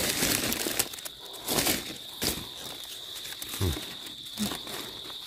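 Dry leaf litter rustling and crunching in a few short bursts during the first couple of seconds as the forest floor is handled or stepped on, over a steady high-pitched insect drone.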